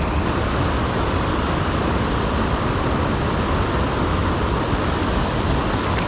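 Steady rush of a small creek's flowing water, an even hiss with no pauses.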